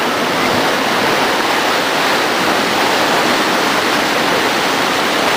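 Whitewater river rapids rushing: a loud, steady wash of churning water with no break.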